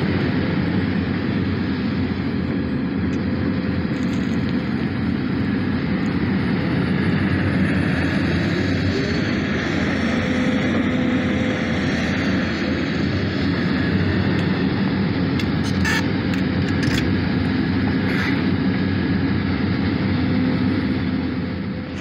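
Sumitomo SH300 excavator's diesel engine running steadily under load as it digs and swings its bucket, with a few short clicks in the latter half.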